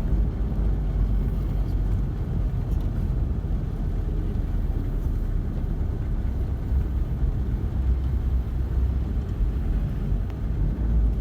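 Steady low rumble of a vehicle driving on the road, with no clear engine tone and no sudden events.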